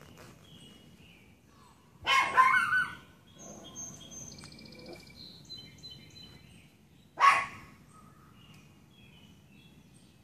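Dog barking: a quick burst of two or three loud barks about two seconds in, then one more bark about seven seconds in. Small birds chirp faintly between the barks.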